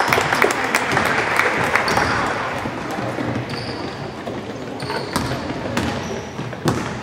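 Basketball bouncing on a hardwood gym floor amid sneakers squeaking, with spectators' voices that are loudest in the first couple of seconds and then die down.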